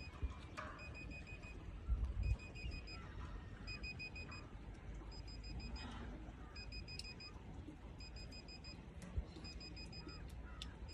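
Satellite finder meter beeping in short groups of rapid high pips, about one group a second, while the dish is aimed: the tone signals that a satellite signal is being received. A few low thumps about two seconds in.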